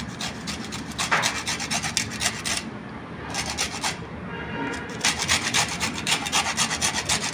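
Gondhoraj lemon rind rasped up and down a flat stainless steel hand grater, taking off the green zest. Quick, even scraping strokes come in three runs, with short pauses about three and four and a half seconds in.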